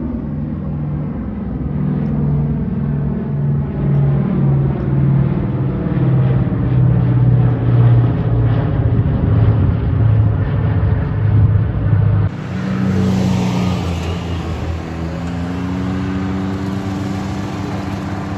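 Four radial engines of a B-29 Superfortress droning in a deep, pulsing note as it flies overhead, the pitch slowly falling as it passes. About twelve seconds in the sound cuts to a lighter hum of small engines, its pitch slowly rising.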